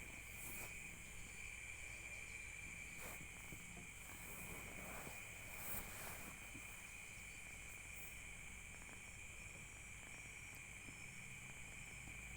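Faint, steady insect chorus, crickets trilling without a break, with a few soft clicks.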